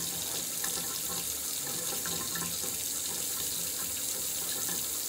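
Tap water running steadily into a sink while a makeup brush is washed.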